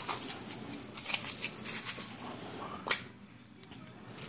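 Foil wrapper crinkling as it is peeled off a chocolate surprise egg, then one sharp snap just before three seconds in, followed by quieter handling.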